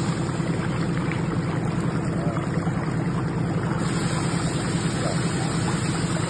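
Shallow river rapids rushing steadily around people sitting in the current, a close, even rush of flowing water.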